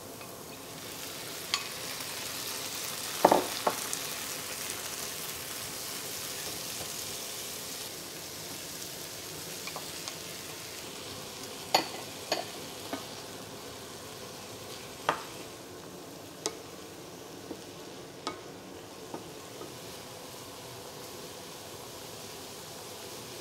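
Leeks and peas sizzling in a frying pan while being stirred with a wooden spatula. The sizzle swells about a second in, as the sugar snap peas and green peas go into the pan. Scattered sharp knocks of the spatula and bowl against the pan run throughout, the loudest a few seconds in.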